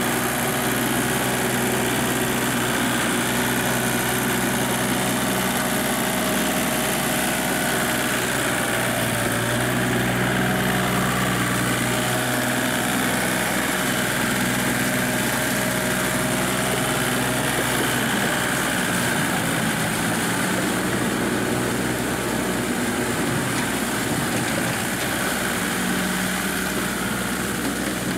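Small Kubota compact tractor's diesel engine running steadily, with slight rises and falls in pitch, as it works an implement through deep paddy mud.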